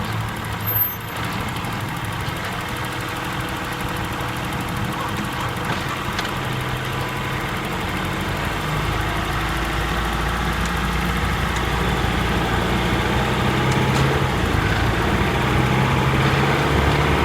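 Honda Freed Hybrid's i-DCD powertrain, a 1.5-litre four-cylinder engine with a dual-clutch transmission and motor, running steadily while driving during a cold-start warm-up. It grows slowly louder, and its pitch rises a little in the second half.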